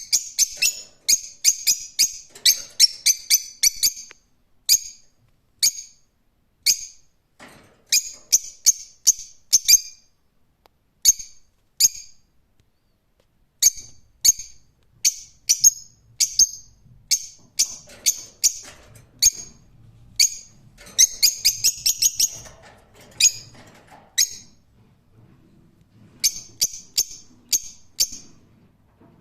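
Lovebirds calling with sharp, high-pitched chirps in quick runs of several a second, broken by short pauses. There is a denser, rapid chattering run about three-quarters of the way through.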